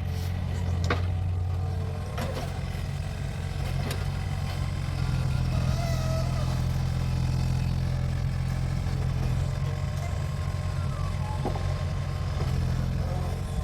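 Mini excavator's diesel engine running steadily under work, with a few sharp clanks of the digging gear scattered through.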